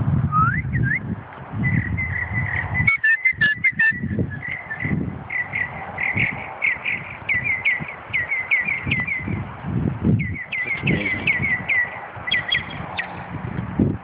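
Small songbird singing long runs of clear whistled notes, about four or five a second, each bending in pitch, with a short break about ten seconds in. Wind rumbles on the microphone underneath.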